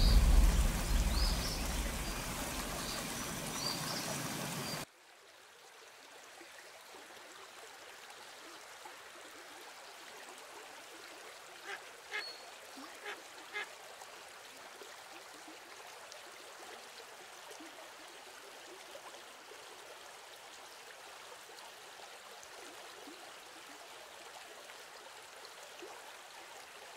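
A deep rumbling boom fading under a steady hiss and a few high chirps, cut off abruptly about five seconds in. After that a faint, steady outdoor hiss, with three or four short high calls near the middle.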